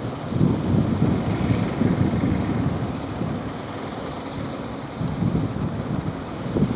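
Strong wind buffeting the microphone, a gusty low rumble that swells and eases.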